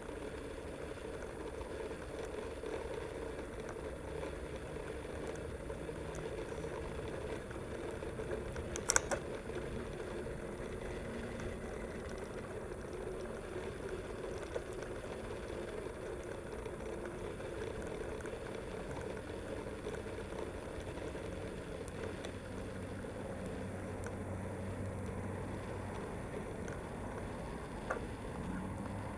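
Mountain bike riding noise picked up by a camera mounted on the bike: a steady rumble of tyres and frame rolling along a paved path, with one sharp knock about nine seconds in.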